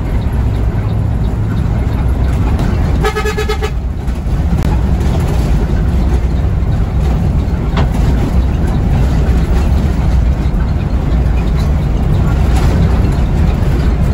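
Intercity bus running on the road, heard from inside the cab: a steady low engine and road rumble. One horn blast of just under a second sounds about three seconds in.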